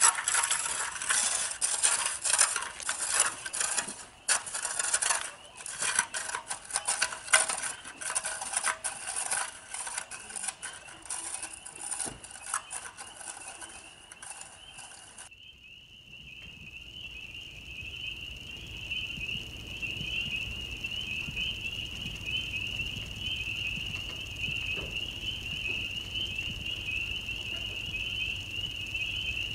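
Footsteps crunching and clattering on a sandy dirt road for about fifteen seconds, over a steady high-pitched chorus of frogs. After an abrupt change about fifteen seconds in, only the frog chorus goes on, an even trill.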